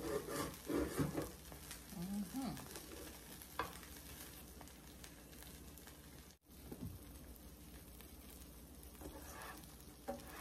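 Grilled cheese sandwich frying in oil in a nonstick pan: a steady soft sizzle, with a few light knocks in the first few seconds and a brief cut-out about six seconds in.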